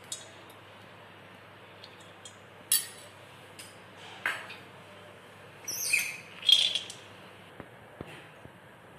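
Hot ghee in a stainless-steel kadai giving a few sharp crackles and pops, then a louder burst of crackling about six seconds in as cashew nuts go into the ghee to fry.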